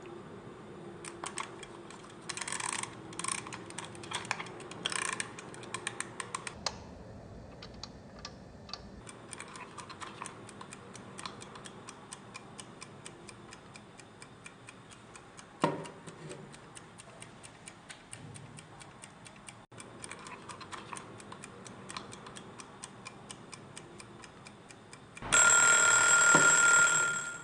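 Wind-up kitchen timer ticking steadily as it counts down, with a few louder clicks early on and one sharp knock midway. Near the end its bell rings loudly for about two seconds, a bright metallic ring with two steady pitches, then stops suddenly: the set time has run out.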